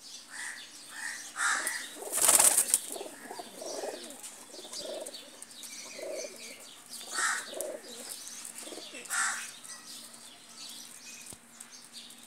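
Domestic pigeons in a loft cooing, with a loud burst of wing flapping about two seconds in and short, higher bird chirps scattered through.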